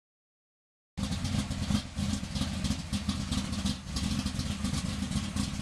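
1959 Jaguar race car's engine running at a steady idle, a loud low rumble with some rattle. It comes in abruptly about a second in.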